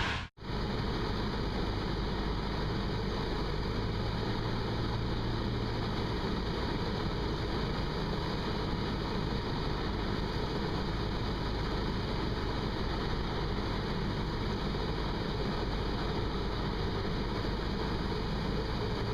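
Cessna 172's engine and propeller droning steadily, heard from inside the cabin, with one brief dropout just after the start.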